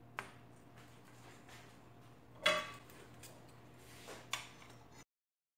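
Metal spatula and biscuits clinking against a metal baking tray and wire cooling rack: a light click near the start, one louder ringing metallic clink about two and a half seconds in, and another sharp clink near four and a half seconds. The sound then cuts to total silence about five seconds in.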